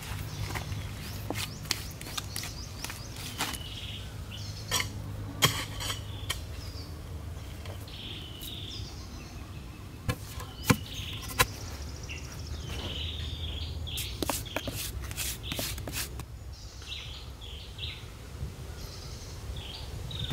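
Scattered knocks, clacks and scrapes of hand digging in stony soil as a wooden post is set and loose earth is scooped out, with a few sharper knocks standing out. Birds chirp on and off throughout.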